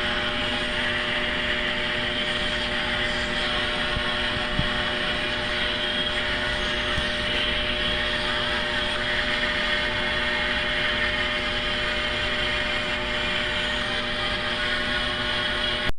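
Steady mechanical drone with a few constant hum tones, unchanging throughout, that cuts off suddenly at the end.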